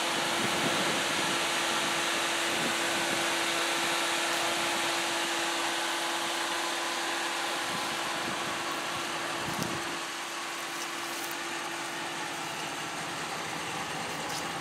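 Ram 1500 pickup's 5.7 HEMI V8 idling with a steady, fan-like hum, a little fainter from about ten seconds in.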